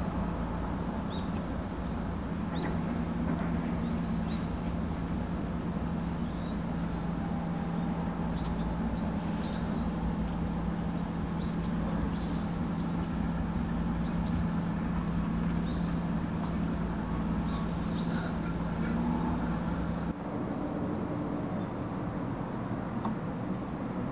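Outdoor ambience: a steady low hum with scattered short, faint bird chirps. The hum changes abruptly about twenty seconds in.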